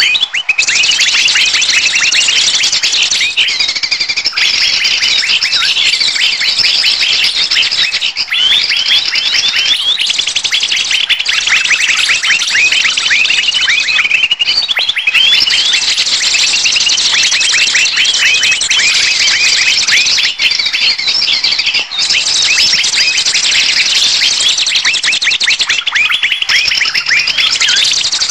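Bird-luring recording of a dense chorus of many small birds calling at once: rapid high chirps and short sweeping calls, loud and almost unbroken. This is the agitated 'ribut' flock sound that trappers play to draw wild birds in.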